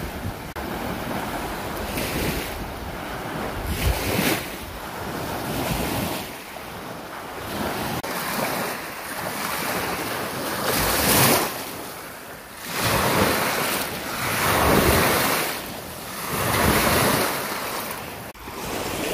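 Lake Victoria waves washing onto the beach, swelling and ebbing every two seconds or so, with wind blowing across the microphone.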